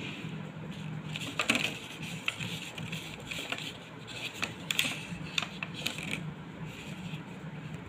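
Flat paintbrush stroking and dabbing paint onto a thin clear plastic biscuit tray, the plastic crackling and clicking under the brush in irregular sharp ticks, the loudest a little over a second in.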